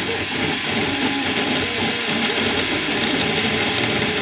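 Small desktop 3D printer at work: its motors whine in short tones that keep changing pitch as the print head moves, over a steady fan hiss.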